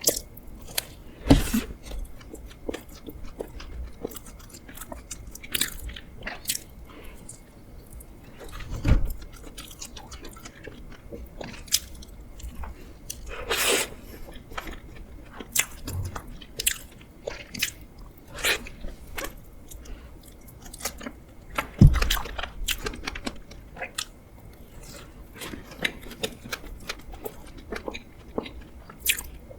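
Close-miked eating sounds: chewing and biting, with many small wet mouth clicks and a few louder knocks, about a second and a half, nine and twenty-two seconds in.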